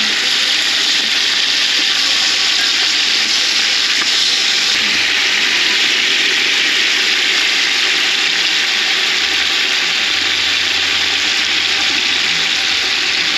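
Chicken pieces browning in hot oil in a large pot: a steady, loud sizzle of frying.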